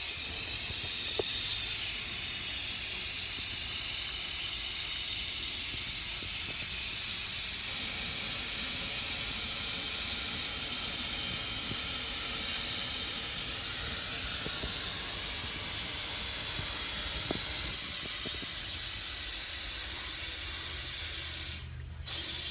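Steady hiss of helium rushing from a balloon inflator nozzle into a latex balloon being filled, breaking off briefly near the end.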